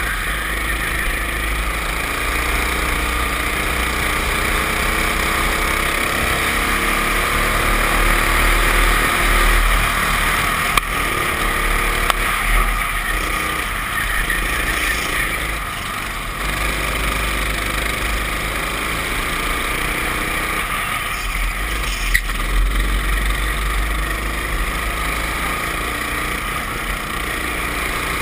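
Racing kart engine heard on board, its pitch rising again and again as the kart accelerates, under heavy wind rumble on the microphone. A few sharp knocks break through.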